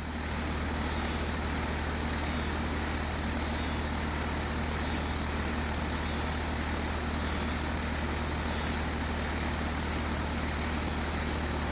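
Steady mechanical drone: a constant low hum under an even rushing noise, like a motor and fan running, with no change in pitch or level.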